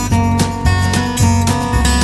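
Background music: an instrumental acoustic guitar piece with evenly paced plucked and strummed notes.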